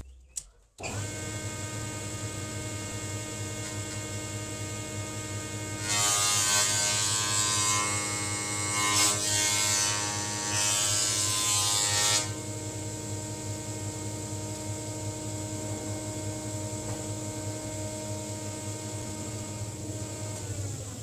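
Furore 300 I jointer running with a steady motor hum that cuts in suddenly just under a second in. From about six seconds in, for about six seconds, the louder rush of its cutterhead shaving the high corners of a twisted board breaks in twice briefly, then the machine idles on.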